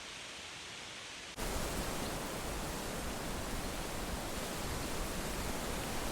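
Wind blowing through leaves, a steady rustling hiss. About a second and a half in it jumps suddenly louder and fuller, then stays steady.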